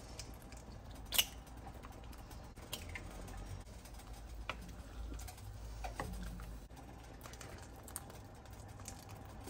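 Wooden spoon stirring a thick soup in an enamelled pot, with a few scattered light clicks and knocks of the spoon against the pot.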